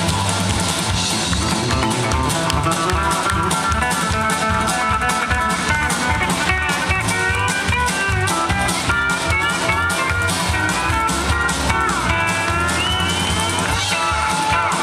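Live country band playing an instrumental break: strummed acoustic guitar and a drum kit keep a steady beat, while a lead instrument plays gliding, bending notes over them from about halfway through.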